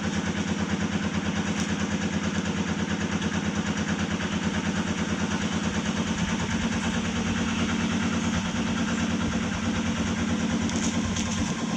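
A small engine idling steadily, a rapid even pulsing with a low hum.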